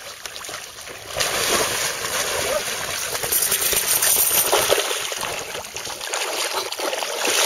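A dog wading and swimming through shallow lake water, splashing steadily as it moves. The splashing gets louder about a second in.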